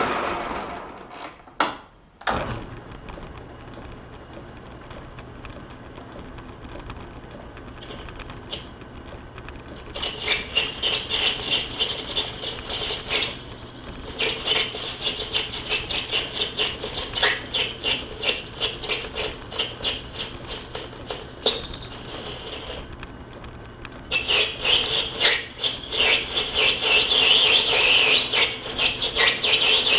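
Metal lathe running with a steady hum, then single-point threading a 1/2-16 thread: a dense, scratchy run of cutting noise starts about ten seconds in. It breaks off briefly a little past twenty seconds and then resumes.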